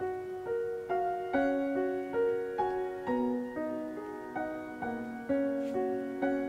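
Background piano music: a slow, gentle melody of single notes struck about twice a second, each ringing and fading.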